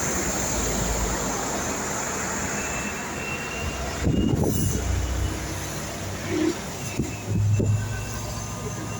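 Steady traffic and road noise in the rain, a continuous rushing, with a few heavy low thumps about four to five seconds in and a short low hum near the end.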